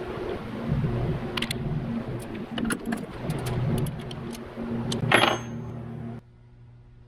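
Light metallic clicks and clinks as a 10 mm bolt is handled and threaded by hand into an aluminium Subaru EJ25 engine block, with one louder ringing clink about five seconds in. A steady hum runs underneath and cuts off suddenly about six seconds in.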